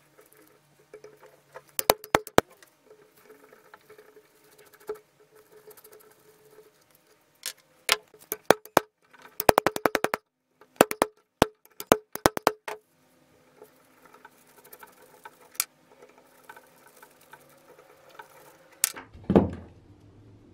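Hand ratcheting screwdriver clicking in quick runs of sharp ticks as screws are backed out of a rusty cast-iron press head, with a heavier thump near the end.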